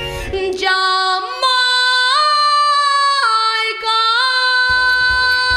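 A boy singer holding long high notes at the close of a song, the pitch stepping up and down a few times. The backing track drops out about a second in and comes back near the end under one steady held note.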